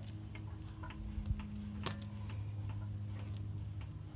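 Light, irregular clicks and taps over a steady low hum.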